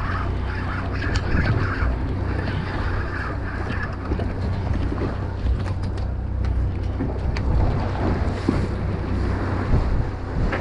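Wind buffeting the microphone and choppy water splashing against the hull of a fishing boat, over a steady low hum.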